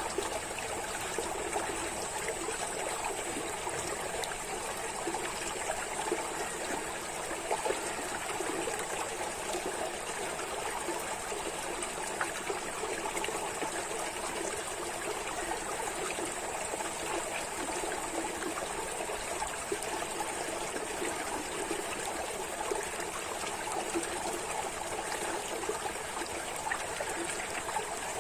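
Running water trickling and splashing steadily, with no change in flow.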